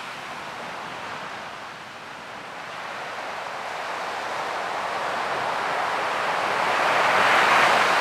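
Ocean surf: a steady wash of waves that dips about two seconds in, then slowly builds to a loud surge near the end as a wave breaks and rushes in.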